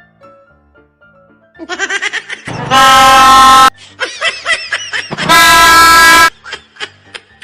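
Two loud blasts of a train horn, each about a second long, steady in pitch and clipping at full volume, the second coming about a second and a half after the first ends.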